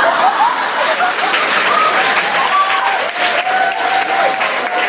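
Audience applauding, dense steady clapping with a few voices calling out over it.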